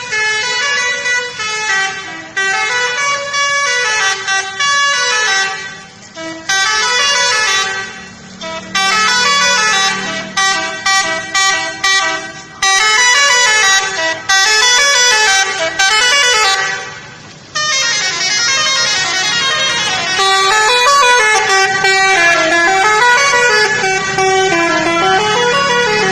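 Telolet horn on an Indonesian bus: a multi-tone musical air horn playing warbling up-and-down melodies in several long phrases, with short breaks between them.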